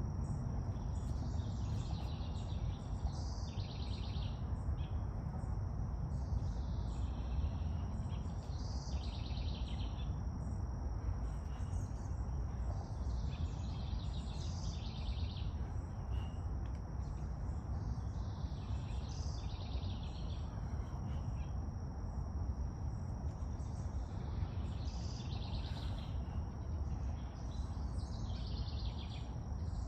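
Outdoor ambience: birds chirping in short high phrases every second or two over a steady low rumble, with a faint steady high tone above.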